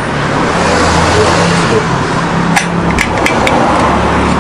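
A steady, loud rumbling noise with a few sharp light metallic clicks and taps about two and a half to three and a half seconds in, as small metal stove parts or tools are handled.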